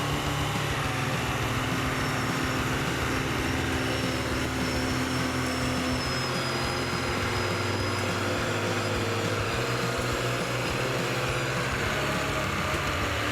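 Logging truck engine running steadily.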